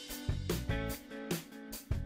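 Background music with a steady beat and sustained instrumental tones.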